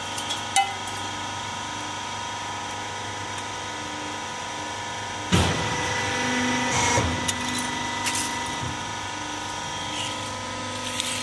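Transformer recycling machine running with a steady multi-tone hum from its motor. A sharp metallic knock comes just after the start, and about five seconds in a loud metallic grinding clatter starts suddenly and lasts about two seconds as the machine works a scrap transformer, its copper windings being cut or pulled out.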